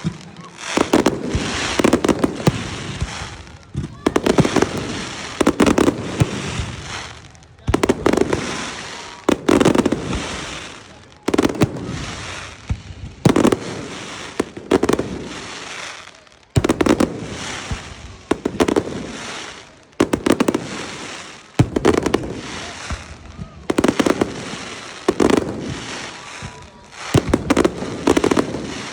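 Fireworks display: a steady run of aerial shells going off, with a new sharp bang every second or two, each one fading away over a second or so.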